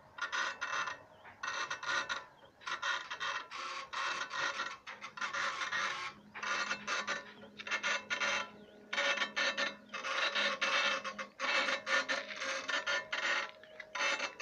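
Two CNC engraving machines engraving black granite at once, their heads working the stone in a dense run of rapid ticks. The ticking comes in stretches of one to two seconds broken by short pauses, over a faint steady hum.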